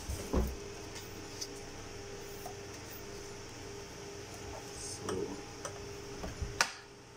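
Light plastic clicks and knocks as a syringe is fitted into a syringe pump's holder and clamp, ending in one sharp click near the end. A faint steady hum runs underneath and stops at that click.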